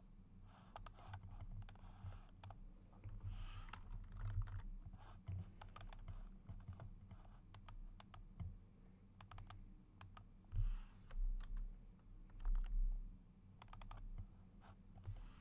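Computer keyboard keys and mouse buttons clicking in short irregular clusters, over a low steady hum, with a few dull low thumps between about ten and thirteen seconds in.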